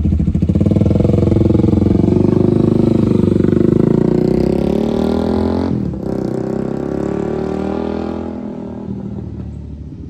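Honda Rebel 300's single-cylinder engine through a Coffman's Thunder exhaust run without its silencer and with no catalytic converter, essentially straight-piped with a little baffling. The bike pulls away and accelerates down the lot, with a brief dip in the engine sound about six seconds in, then the sound fades as the bike rides off.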